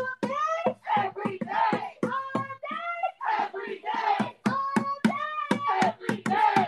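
A single voice singing or chanting in held, gliding notes over a quick, even rhythm of sharp hits such as claps.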